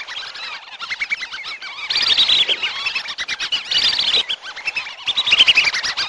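Whistling ducks (belibis) calling as a flock, a lure call for drawing in a flock. Rapid trains of short, high whistled notes come in repeated bursts, with several voices overlapping.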